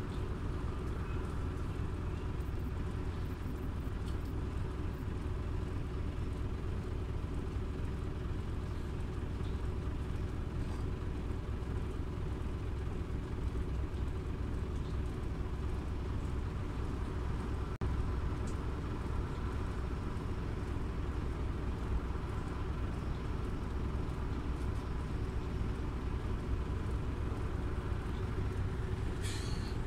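Scania OmniLink city bus on the move, heard from on board: a steady low rumble of engine and road. A short hiss comes near the end.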